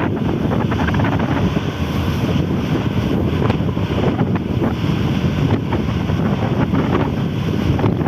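Strong wind buffeting the microphone: a steady, loud low rumble of wind noise.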